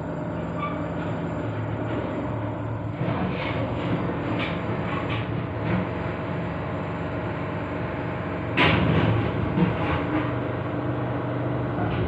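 Machinery from outside works running with a steady low hum made of several steady tones. Irregular rattles and clanks come in from about three seconds in, with one louder bang a little after eight seconds.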